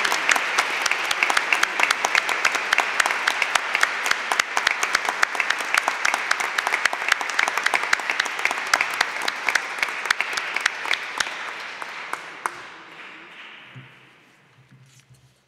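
Audience applauding, a dense steady clapping that fades away over the last few seconds.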